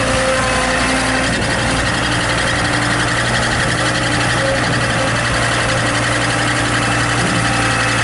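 Case 1845 skid steer's engine running steadily while the machine drives and raises its loader arms.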